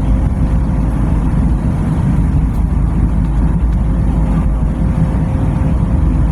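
Passenger train running at speed, heard from inside the carriage: a steady low rumble with a faint constant hum over it.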